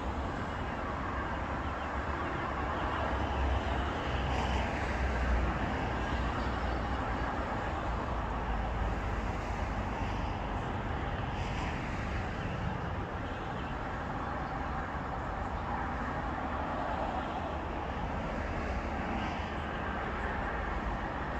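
Steady hum of road traffic from cars passing along a riverside road, a continuous low rumble without distinct events.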